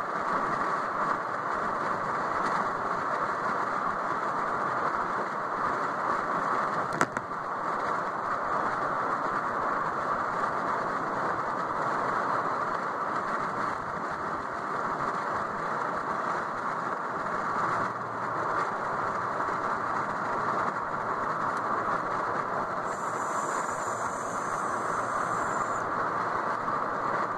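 Steady road and engine noise inside a moving car's cabin, with a single faint click about seven seconds in.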